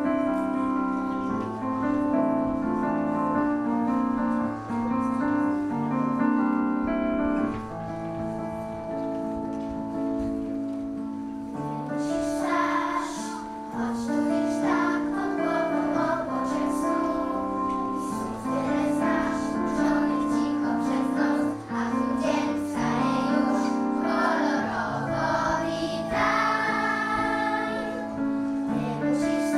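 Instrumental accompaniment with held chords playing alone, then a children's choir comes in singing about twelve seconds in and carries on over it.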